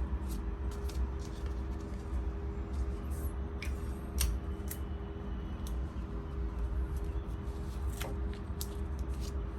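Tape and transfer paper being handled and cut for taping a dog collar down: scattered small clicks, snips and rustles over a steady low hum.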